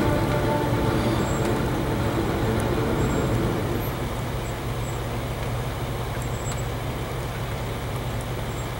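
Jeep Grand Cherokee's engine running at low speed as the loaded SUV crawls over rock ledges, a steady low rumble that eases a little about four seconds in.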